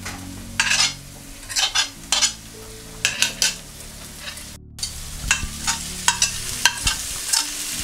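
Onions and leek sizzling in hot oil in a frying pan while a wooden spoon stirs and scrapes them, then, about halfway through, a fork scraping chopped tomatoes off a plate into the pan. The result is a series of short, sharp scrapes and clinks over the frying hiss.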